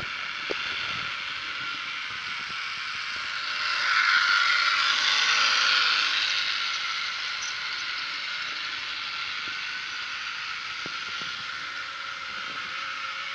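Model CC 40101 locomotive running on its track: the steady whir of its small electric motor and gears, with the wheels rolling on the rails. It grows louder as it passes close about four seconds in, then fades back.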